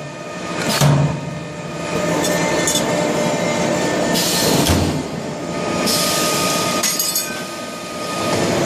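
Pneumatic duct corner-fixing machine at work: steady metallic machine noise with a thin squeal, a clank, and two short hisses of air, about four and six seconds in.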